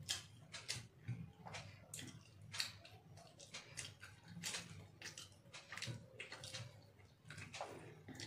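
Eating by hand: fingers squishing and mixing biryani rice on a plate, with chewing and lip-smacking, in many short, irregular wet smacks and clicks over a faint low hum.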